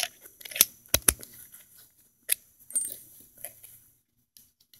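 Gloved hands handling a garden hose and its metal hose clamp: irregular sharp clicks and knocks, the loudest two close together about a second in, with rustling of work gloves between them.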